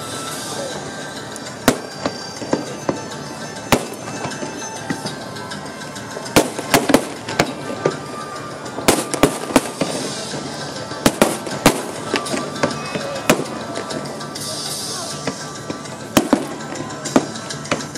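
Fireworks bursting in a show, many sharp bangs and cracks coming irregularly in clusters, with a brief high hiss about fourteen seconds in. Music and crowd voices run underneath.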